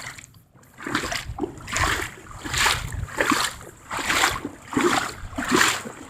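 Footsteps splashing through shallow floodwater, one step about every three-quarters of a second.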